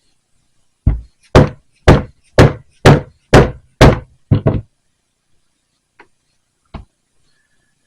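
Hammer striking a round end punch to cut the end of a leather strap: about eight heavy knocks roughly twice a second, the last two close together, then a single knock a couple of seconds later.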